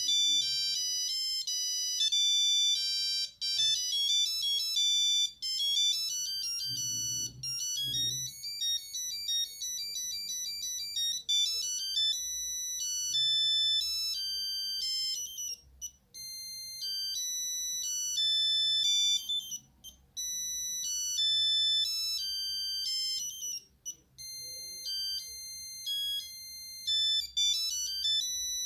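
Nokia 8210 playing a monophonic ringtone: a quick tune of single buzzy beeping notes, one at a time. In the second half a short phrase repeats about every four seconds, with brief gaps between repeats.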